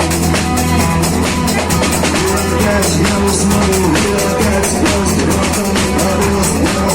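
Rock band playing live: a drum kit keeps a steady beat over a sustained low bass line, with pitched instrument notes above.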